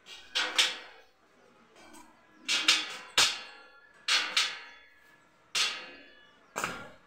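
A hammer striking the welded joints of a steel square-tube frame, about nine blows in singles and pairs, each ringing briefly.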